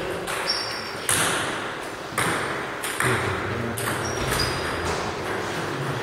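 Celluloid table tennis balls striking paddles and table tops: irregular sharp pings, about one a second, ringing briefly in a large hall.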